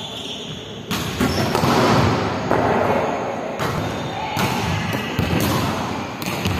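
Volleyball being struck and landing during a rally: a string of sharp slaps and thuds, about ten in all, that echo around a large indoor sports hall.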